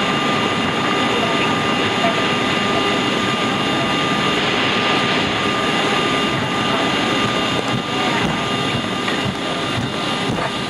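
Steady jet-engine and cabin noise inside a Boeing 757 rolling off the runway just after landing, a constant hiss with a few fixed tones running through it.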